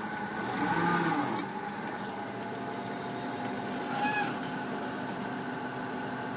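Forklift engine running steadily, with a brief whine that rises and falls and a hiss about half a second in, then a short squeak around four seconds.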